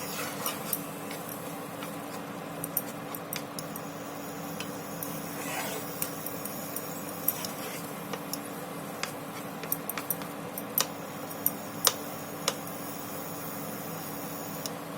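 A spoon stirring oats upma in a pan, with scattered clicks and scrapes of the spoon against the pan over a steady low hiss. The clicks come more often in the second half, as the upma is cooked until it is dry.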